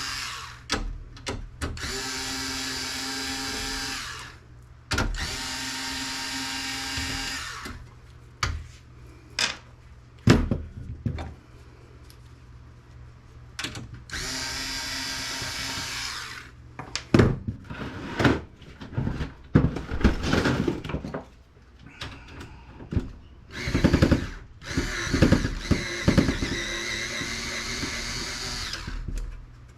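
A power drill running in repeated spells of two to three seconds, backing screws out of a desktop computer case. Between the spells there are sharp clicks and knocks of metal parts being handled.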